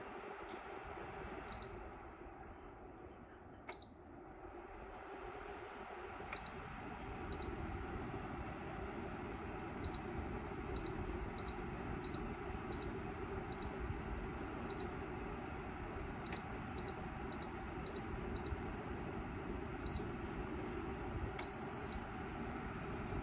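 Electric space heater's control panel beeping as its settings are pressed: about twenty short high beeps at irregular intervals, with one longer beep near the end. Under them is a steady rushing noise that grows louder a few seconds in.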